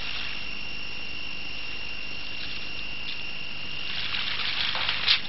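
Steady hiss with a faint constant high whine from an old film soundtrack. A brief scratchy noise builds near the end.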